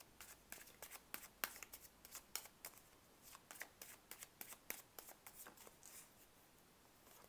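A deck of tarot cards being shuffled by hand: a faint, quick, irregular run of soft card flicks and slaps that stops about six seconds in.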